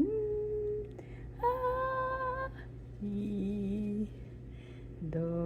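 A woman's voice singing long held notes one at a time, each about a second long with short pauses between, moving between higher and lower pitches, like sung do-re-mi scale practice.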